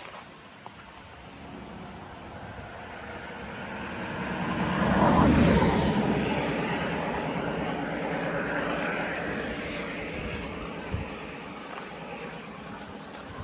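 A motor vehicle passes by. Its engine and road noise swell to a peak about five seconds in, then slowly fade away.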